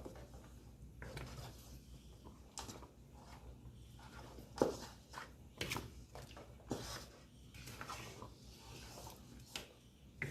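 A cooking spoon knocking and scraping against a pot as soup is stirred, in scattered short knocks, the loudest about halfway through.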